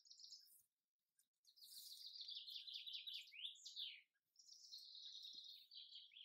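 A small songbird singing faintly: a short burst, then two phrases of rapid, high trilled notes, the first ending in a few quick downward sweeps.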